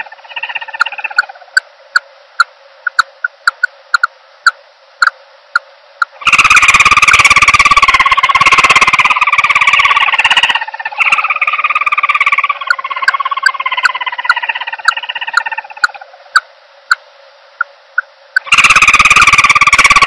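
Recorded calls of a common emerald dove played as a trapping lure: drawn-out, slightly falling moaning notes alternating with runs of short clipped notes, about two or three a second. Two stretches, from about 6 to 10 seconds in and again near the end, are much louder and noisier.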